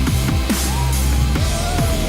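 Background electronic dance music with a steady pounding kick drum, a deep sustained bass line and regular cymbal hits.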